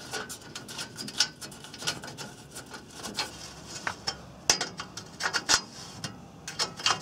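Small open-ended spanner turning a nut on an aluminium greenhouse glazing rail to loosen the screws: a scatter of light, irregular metal clicks and scrapes.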